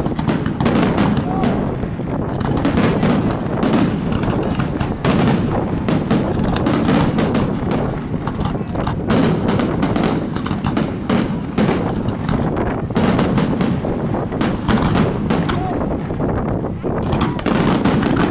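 Fireworks display: a rapid, continuous barrage of aerial shell bursts, many sharp bangs a second without a break.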